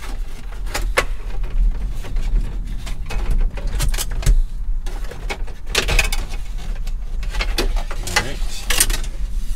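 Plastic dash trim of a 2nd-gen Dodge Ram being pried loose by hand: a string of clicks, snaps and rattles as the brittle instrument-cluster bezel's clips let go, over a steady low hum.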